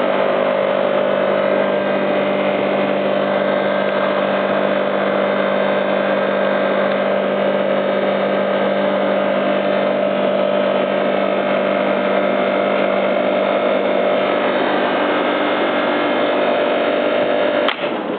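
Home-built air compressor, driven by two three-phase air-conditioner compressors, running with a steady loud hum. Near the end a click and it switches off, the hum dying away.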